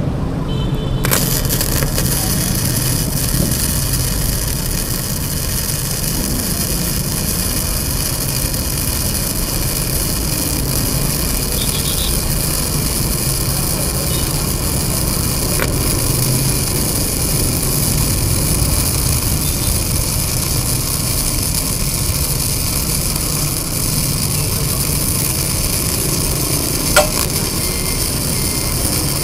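Wintech MIG 250 welder's arc crackling steadily as a bead is run along painted steel angle. It starts about a second in, with one sharp pop near the end.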